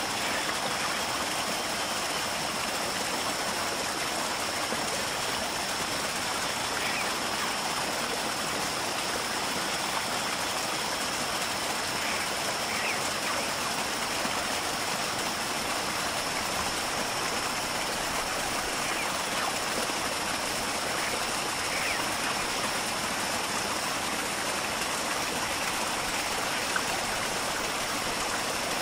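Steady rush of running water, even throughout, with a thin steady high tone above it and a few faint short chirps.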